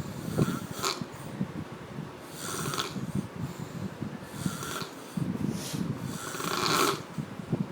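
Heavy snoring from a sleeper: a rattling, fluttering snore on each breath, with a breathy hiss about every two seconds.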